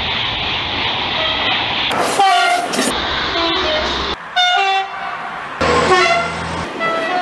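Passing train rushing by close up, then a quick series of short SNCF train horn blasts, each cut off abruptly as the audio jumps from one train to the next.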